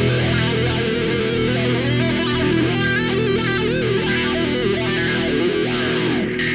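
Rock music: an electric guitar plays a melodic line that moves up and down over steady held notes.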